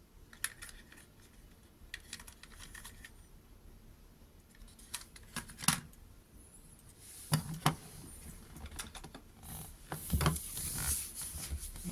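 Small plastic toy and its packaging being handled: scattered light clicks and taps, a few sharper knocks around six and seven and a half seconds in, and rustling near the end.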